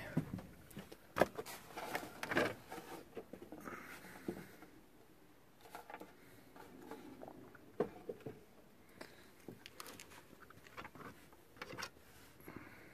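Irregular clicks, knocks and rustling as objects are handled at close range; the sharpest knock comes about a second in.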